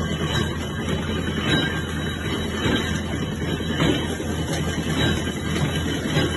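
Sugarcane mill running, its gears and rollers grinding cane stalks to crush out the juice: a steady mechanical rumble with a faint knock about once a second.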